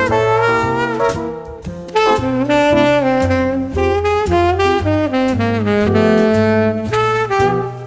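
Background instrumental jazz music: a melody line moving from note to note over repeating bass notes.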